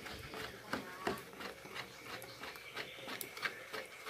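A spoon stirring thick pirão (cassava-flour porridge) in an aluminium pot, giving faint, irregular scrapes and light clicks against the pot.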